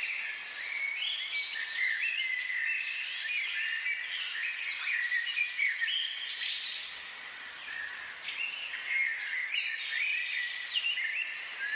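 Many small birds chirping and twittering at once, a dense chorus of short high calls over a steady hiss.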